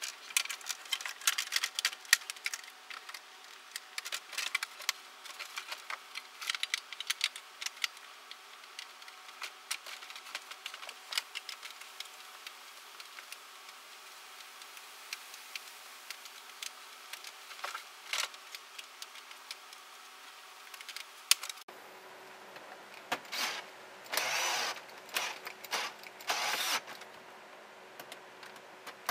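Plastic dashboard trim bezels of a pickup truck being handled and snapped back into place: a long run of quick clicks, taps and rattles of plastic parts and clips. Later come a few longer rasping sounds as the trim is worked and screwed down.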